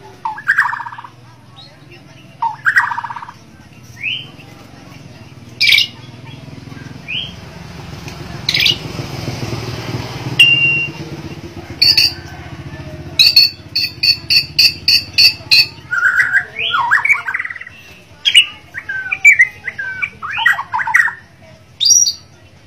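Bornean white-rumped shama singing loudly in varied phrases: harsh chattering notes, short rising whistles and sharp clicks, with a quick run of about eight evenly repeated notes just past the middle, followed by tumbling, jumbled phrases.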